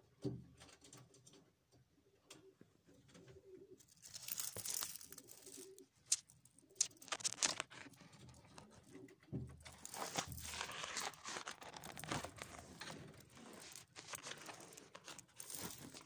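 Feral rock pigeon cooing low for the first few seconds, then loud rustling, scratching and wing flaps from pigeons scuffling right at the window.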